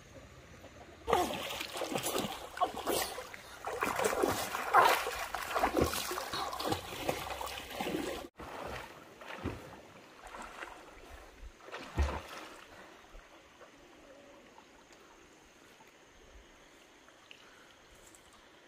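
Water splashing and sloshing, dense and irregular for several seconds, then sparser after a sudden cut, with one heavier splash about twelve seconds in.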